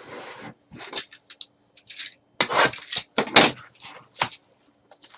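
Trading cards and their cardboard and plastic packaging being handled on a table: a run of short, uneven scrapes, slides and knocks, the loudest a few sharp ones about two and a half to three and a half seconds in.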